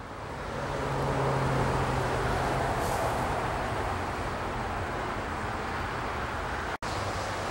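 Road traffic: a steady wash of tyre noise that fades in over the first second, with a low engine hum for the first few seconds. The sound drops out for an instant near the end.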